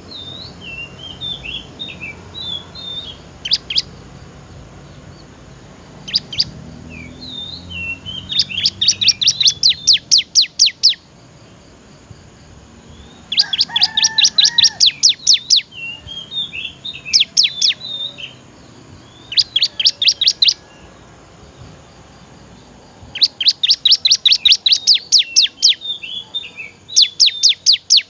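Ciblek (prinia) singing: soft twittering warbles alternating with loud, fast trills of sharp repeated notes, six trill bouts, each one to three seconds long.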